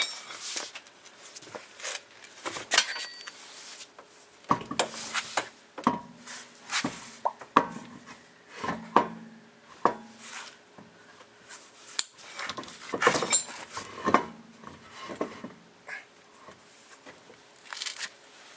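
Irregular metallic clinks and clunks as a car's alloy wheel is handled and hung back on the hub, mixed with rubbing and bumps from the camera being moved close against clothing.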